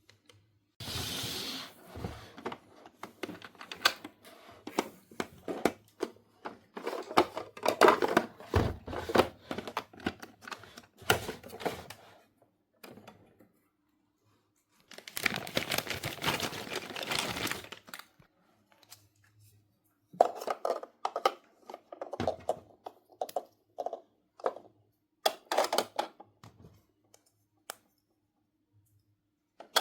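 Small plastic toy pieces and packaging being handled: irregular clicks and taps, with two stretches of rustling, one about a second in and one around the middle.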